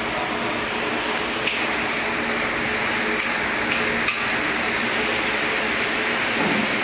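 Steady hum and hiss of running electric fans, with a handful of light clicks and taps of the slush machine's plastic bowl and syrup bottle being handled, the sharpest about four seconds in.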